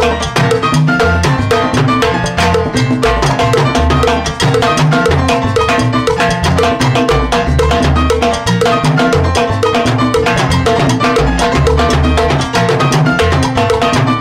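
Live salsa music: timbales played hard with sticks, fast strokes on the drums over the band's repeating bass line.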